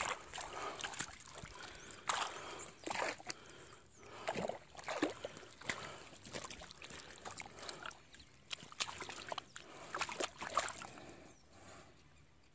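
Water sloshing and splashing close by in irregular bursts.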